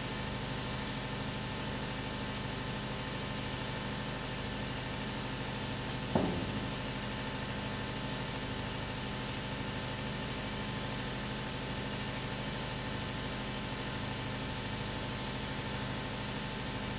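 Steady hum of an idling engine, with a single thump about six seconds in.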